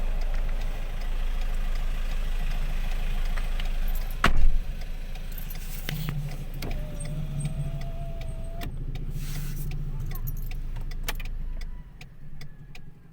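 A vehicle's engine idling with a steady low rumble, heard from inside the cabin, with one loud knock about four seconds in. Near the end the engine is switched off, leaving a few small clicks.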